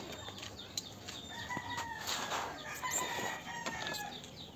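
A rooster crowing: one drawn-out crow starting about a second in and lasting close to three seconds, with a few faint clicks of handled metal parts.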